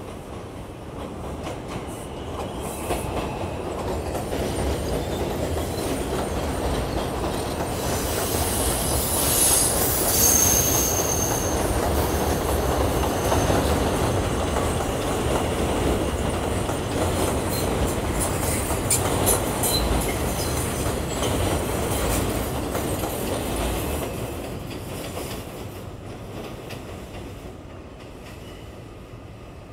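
R142 subway train passing close by on an elevated track, its steel wheels squealing with a high whine about ten seconds in and clicking over the rail joints. The sound builds as it nears and fades as it goes away.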